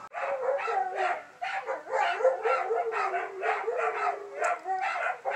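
Two dogs barking and howling in quick, overlapping calls, set off by a siren that one of them, Papa, cannot stand.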